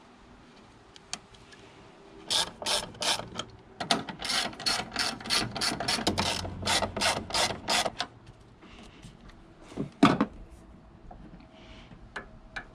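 A hand ratchet wrench clicking in quick, even strokes: a short run about two seconds in, then a longer run of about four seconds. A single sharp knock follows about ten seconds in.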